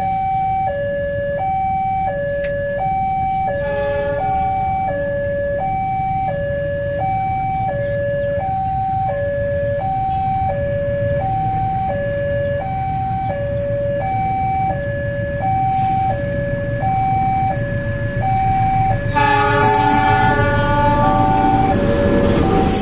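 Railway level-crossing alarm sounding its electronic two-tone warning, steadily alternating between a higher and a lower tone, over a low rumble. About 19 seconds in, a train horn cuts in loud and holds for a few seconds.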